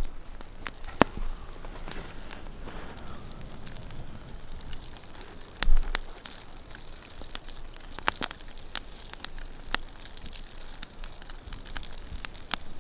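Campfire crackling, with scattered sharp pops from the burning coals and wood, and one low thump about six seconds in.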